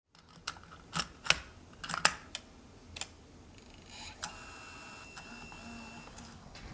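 Handling noise on a Sony VX2000 MiniDV camcorder: a quick series of sharp clicks and knocks over the first four seconds or so, then a faint steady high-pitched whine.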